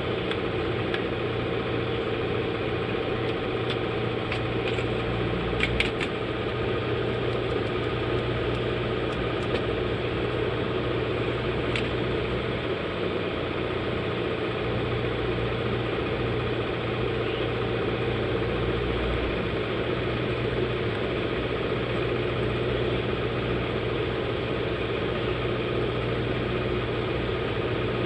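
A steady mechanical hum, with a few light clicks about six and twelve seconds in.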